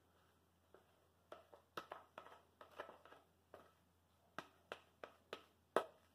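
A spoon scraping and knocking against a plastic tub as thick cake batter is worked out of it into a cake pan: a run of soft, irregular clicks and scrapes, the loudest near the end.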